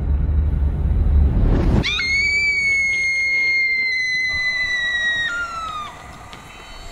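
A loud low rumble, then a piercing high-pitched shriek held very steady for about three seconds. The shriek sags slightly in pitch, steps down near the end and fades out.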